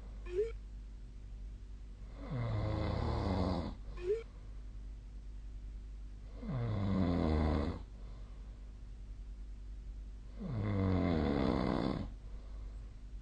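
A sleeping person snoring in a steady rhythm: three snores about four seconds apart, each lasting about a second and a half. A short, high squeak follows the end of the snores near the start and again about four seconds in.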